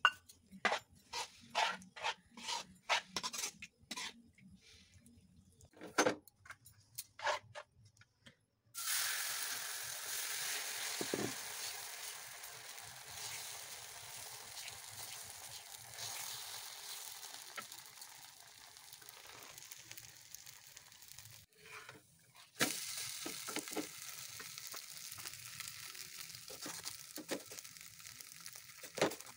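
A spoon clinks and taps repeatedly against a steel bowl as egg is beaten into a thin vegetable batter. About nine seconds in, batter spread on a hot tawa starts sizzling steadily. The sizzle breaks off briefly a little past twenty seconds, then resumes with a few taps of the ladle.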